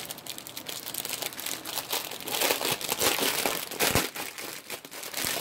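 Clear plastic bags of diamond painting drills crinkling as they are handled, with one sharper click about four seconds in.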